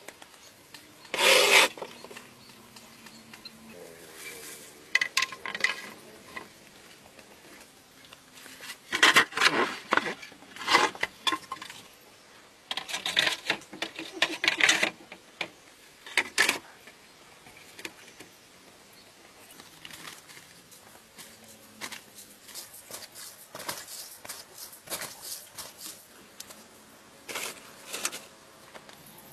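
Corrugated roofing sheets being handled and laid on a small wooden-post frame: several separate bursts of scraping and clattering with quiet stretches between them, loudest about nine to fifteen seconds in.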